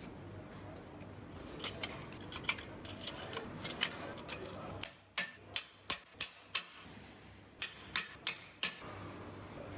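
Sharp metallic clicks and clinks of hand tools and parts on an aluminium V8 engine block during crankshaft and connecting-rod assembly. A few scattered clicks sound over a low workshop hum, then from about five seconds in the hum drops away and about nine sharp clicks follow, two or three a second.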